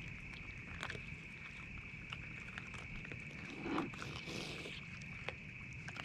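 Raccoons handling and chewing at a carved pumpkin: scattered sharp clicks and small knocks, with a brief louder scuffle about four seconds in. A steady high-pitched hum runs underneath.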